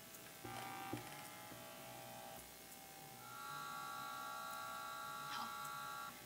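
Faint electrical hum and whine made of several steady tones, which shift to a higher set about three seconds in, with a faint click about a second in.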